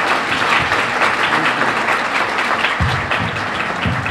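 Audience applauding, a dense patter of many hands, with music playing underneath. A couple of low thumps come near the end.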